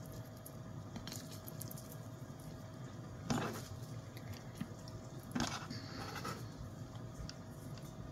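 A red onion being peeled and cut by hand on a wooden board: quiet handling with three short crackling sounds, about three, five and six seconds in.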